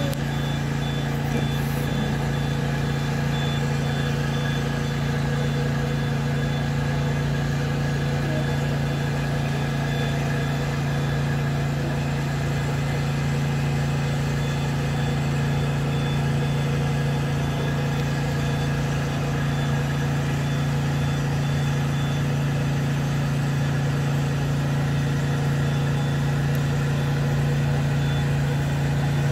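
Motorized mast-climbing scaffold platform running: a steady low motor drone, with a high warning beep repeating steadily over it that stops for a moment about halfway.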